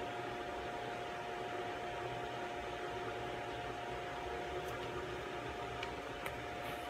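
A steady whirring hum of a running room appliance, with a constant high whine over a hiss, and a few light clicks in the second half.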